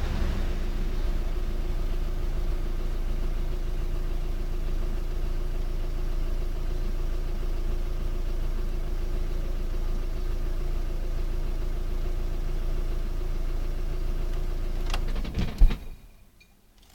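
Skoda Octavia II 2.0 TDI four-cylinder diesel idling steadily, then switched off about fifteen seconds in: a click, then a loud knock as the engine stops, and it falls quiet.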